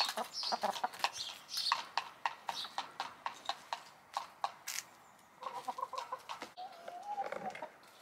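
Hens pecking at food, a quick irregular run of sharp taps, then from about halfway through a string of short clucks and a longer, drawn-out cluck near the end.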